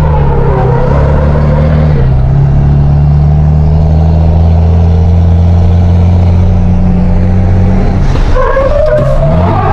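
Volkswagen Constellation truck's diesel engine, heard from inside the cab, running hard at a steady speed, with a brief dip and recovery in pitch about two seconds in. Near the end a wavering higher squeal rises over it.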